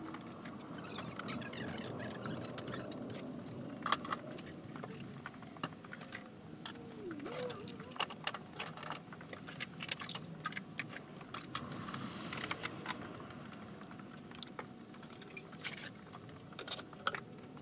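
Fast-forwarded sound of shop stocking work: a dense, irregular run of clicks, knocks and clatter as items are handled and set down, with a brief squeaky rising-and-falling glide about seven seconds in.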